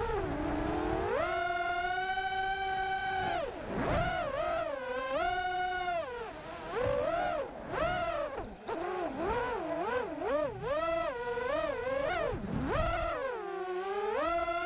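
Brushless motors of a 5-inch FPV quadcopter (Cobra 2204 2300kv with 5x4.5 props) whining, the pitch swooping up and down quickly as the throttle is worked. Near the end the pitch drops low for a moment as the throttle is chopped, then climbs back.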